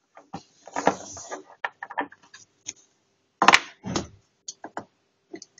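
Small plastic Littlest Pet Shop figurines being handled and set down on a hard surface: a run of light clicks and knocks with some rustling near the start, and two louder knocks about three and a half and four seconds in.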